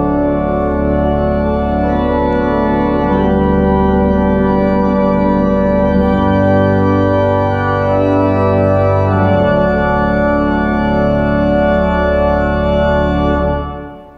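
Church organ playing slow, sustained chords over deep bass notes that change a couple of times, the music coming to a close and dying away near the end.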